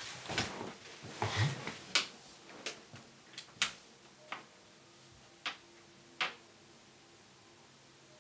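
Stationery and a notebook being handled on a wooden desk: rustling, a low thump, then a string of sharp little taps and clicks at irregular intervals that stop about two-thirds of the way through, leaving quiet room tone.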